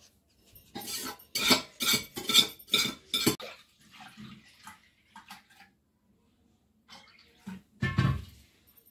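Steel spoon clanking against a steel pressure-cooker pot as cooked vegetables are scooped into a bowl: a quick run of loud, sharp clanks in the first few seconds. Then milk is poured from a steel pan into a pot, a faint splashing hiss with light clatter, and a steel pot is set down with a heavier clunk near the end.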